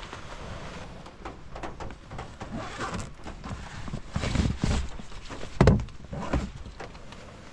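A run of knocks and thumps, heavier and closer together in the second half, the loudest a single heavy thump a little past the middle, over a steady hiss.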